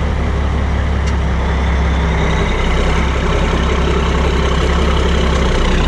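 Semi truck's diesel engine running steadily under load as it pulls the loaded grain trailer away.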